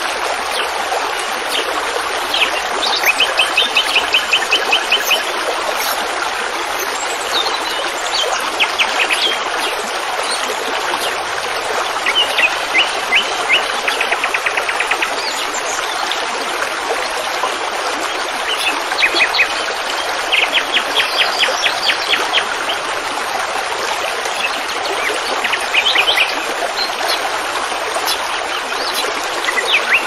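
A songbird singing fast trills of short chirps, each trill lasting one to three seconds and coming again every few seconds. Under it runs the steady rush of flowing stream water.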